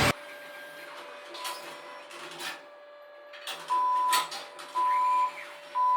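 ATM running its mechanism with whirring and clicking, then three loud half-second beeps about a second apart, the machine's prompt as it dispenses cash.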